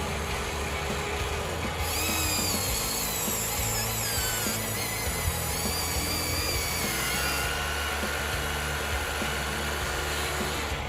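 Small electric gear motors of a radio-controlled construction model whining, their pitch wavering and gliding up and down as the controls are worked, over a steady low hum.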